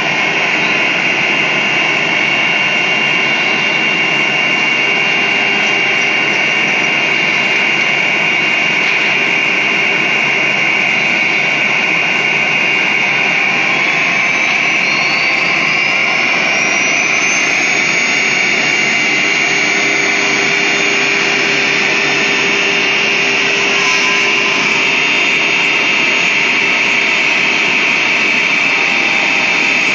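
Wood CNC router running: a loud, steady machine noise with a high whine, and a second tone that rises in pitch about halfway through and then holds.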